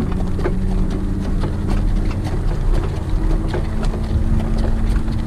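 A steady low vehicle-engine hum with wind rushing on the microphone, and light regular clicks typical of a harness horse's hooves and sulky on the track.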